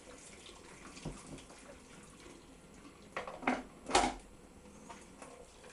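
Boiling water from a kettle poured over cooked rice in a metal sieve and draining through into a pan in a sink, a low steady trickle. A few sharp knocks land about three to four seconds in.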